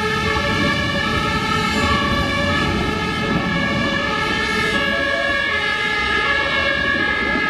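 German fire brigade two-tone sirens (Martinshorn) sounding continuously on vehicles responding with lights, over the low rumble of a tram passing close by.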